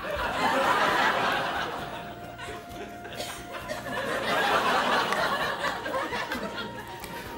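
Studio audience laughing in two waves. The first is loud at the start and dies down about two seconds in, and a second swells up from about four seconds in.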